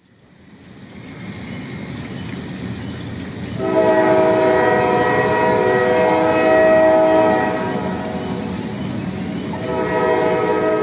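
Passenger train running, its rumble growing louder, with its horn sounding a long chord of several notes from about four seconds in. The horn eases off and sounds again near the end.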